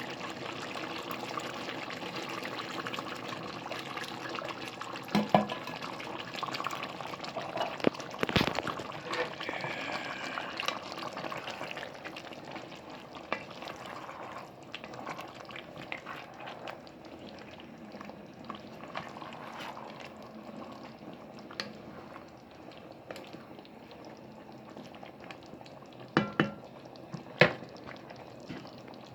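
Pot of curry chicken with chickpeas bubbling as it simmers, with a few sharp knocks about five and eight seconds in and twice near the end.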